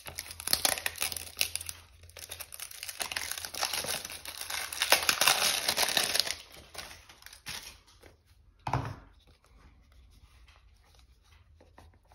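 Thin plastic packaging being slit with a pocketknife blade and torn open by hand: a dense crinkling and tearing for about seven seconds. A single dull knock follows, then quiet handling.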